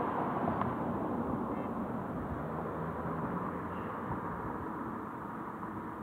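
Road traffic going by: a steady rush of vehicle noise, loudest at the start and slowly fading away.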